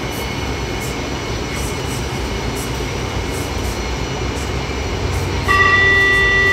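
Fleet P metro train standing at a platform with its doors open, giving a steady low hum. About five seconds in, a loud, steady high-pitched door-closing warning tone starts.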